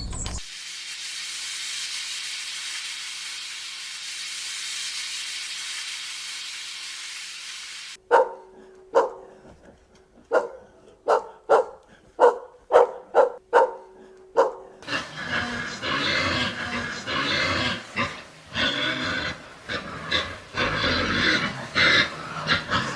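A steady hiss for several seconds, then a dog barking in a run of about a dozen short, sharp barks, followed by a busier stretch of overlapping animal calls.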